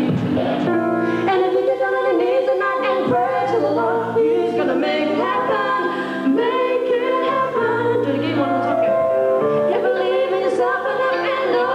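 Several voices singing together in harmony, a female voice among them, with little or no instrumental backing.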